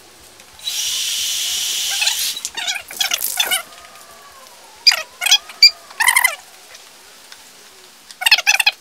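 A FOSCO aerosol spray paint can hissing in one spray of about a second and a half, then several short, loud bursts of rapid chirping.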